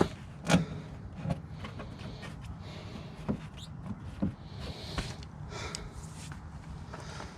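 Hand tools knocking and clinking against metal while working stubborn bolts: scattered, irregular sharp knocks.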